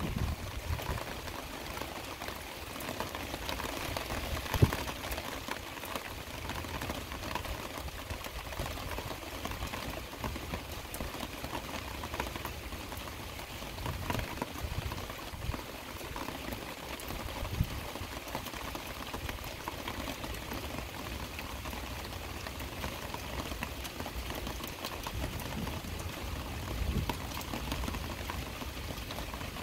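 Heavy rain falling steadily, with a few sharp taps from drops; the loudest comes about four and a half seconds in.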